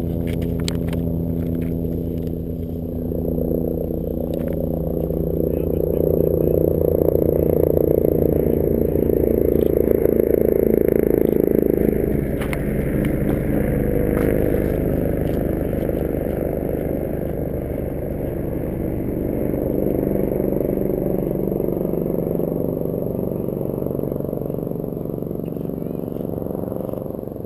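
An engine running steadily with a low pulsing hum, swelling in the middle and dropping away near the end.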